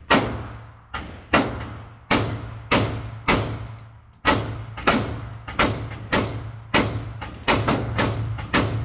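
Gunshots on a shooting range: a string of about fifteen sharp shots at an uneven pace, some in quick pairs, each with a ringing, echoing tail, over a steady low hum.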